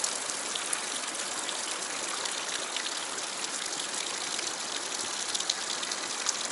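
Fast river current rushing and splashing over rock ledges beside a small cascade: a steady hiss of moving water flecked with small splashes.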